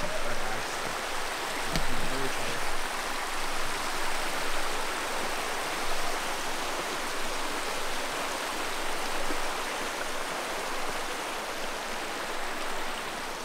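Creek water rushing steadily, with a brief knock about two seconds in.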